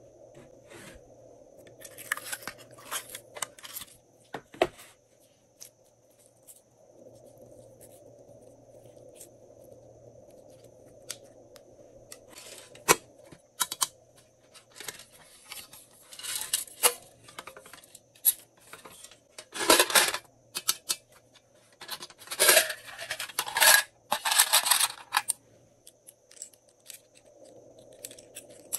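Small plastic decorations (sprinkles and clear plastic charms) dropped and scattered into a glass tray of slime, with plastic containers being handled: clusters of light clicks, rattles and scraping, loudest in the second half.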